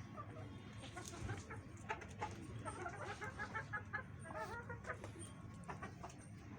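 Chickens clucking, with a quick run of short clucks about six a second in the middle, then a few lower clucks.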